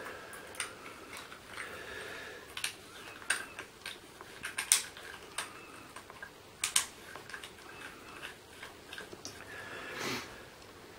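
Metal parts of a Vamo V5 electronic cigarette mod being handled and fitted back together by hand: irregular clicks and taps with light scraping, the loudest clicks about halfway through.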